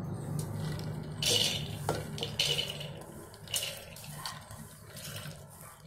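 Soaked chana dal being tipped and scraped by hand from a bowl into an aluminium pressure cooker: wet lentils pattering into the pot in a few short bursts, with a light knock of the bowl against the cooker.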